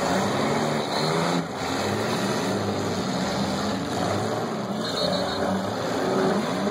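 Several demolition derby cars' engines running and revving at once, their notes rising and falling against each other.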